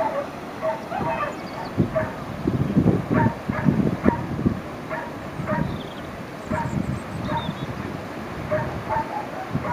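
Short, repeated dog-like yapping calls, about one or two a second, over steady outdoor background noise, with a louder low rumble in the middle.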